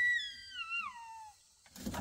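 A young child crying: one long, high wail that slides down in pitch and fades out about a second and a half in, with another cry starting near the end.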